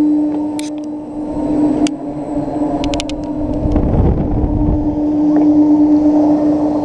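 Onboard sound of an amusement ride swinging riders upside down: a steady hum from the ride's drive, with wind rumbling on the microphone swelling around the middle and a few sharp clicks or rattles, several in quick succession about three seconds in.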